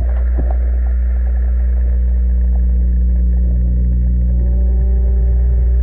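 Steady, loud low hum of a running motor, with a fainter higher tone joining about four seconds in.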